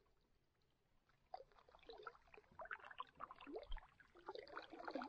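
Canoe paddling: faint gurgling, plopping and dripping water around the paddle, in irregular bursts that start about a second in.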